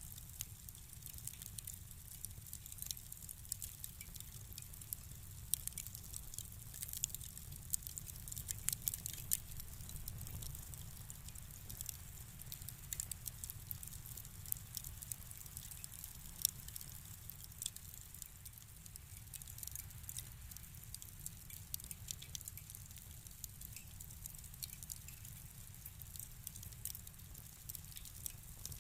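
Wood fire crackling in a fireplace: scattered sharp pops and snaps over a low, steady rumble of the flames.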